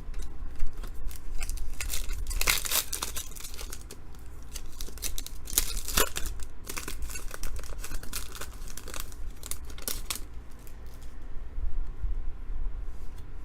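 Trading card pack wrappers being torn open and crinkled by hand, in a string of short rustling bursts; the densest tearing comes about two and a half, six and ten seconds in.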